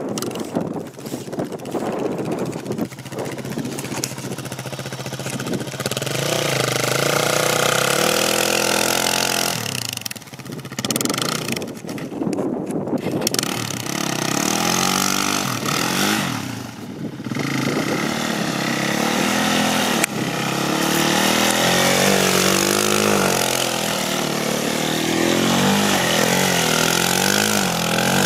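Suzuki LTZ 400 quad's single-cylinder four-stroke engine revving up and down again and again while its rear wheels spin in snow and mud. The throttle drops off briefly a few times.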